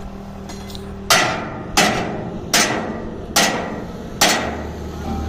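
Five evenly spaced hammer blows on metal, about one every 0.8 seconds, each with a short ringing decay.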